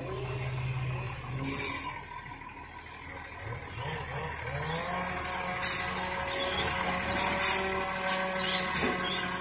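Truck engine running as it slowly approaches, its pitch rising and falling. About four seconds in, a much louder, steady high-pitched whine or squeal sets in and holds, with a few sharp clicks.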